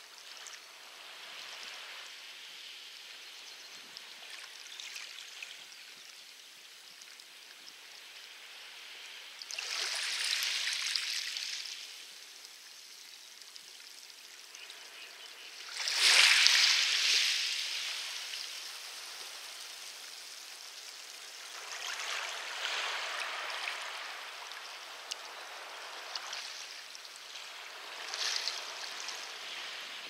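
Small waves washing onto a pebble beach, a hissing wash that swells in about every six seconds, the loudest coming in suddenly around the middle.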